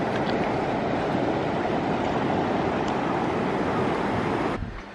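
River water rushing over a rocky bed, a steady, fairly loud noise. It cuts off suddenly near the end.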